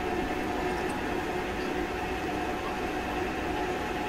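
Smart & Brown toolroom lathe running steadily with no cut, spinning the workpiece in its collet chuck: a steady mechanical hum with a couple of held tones.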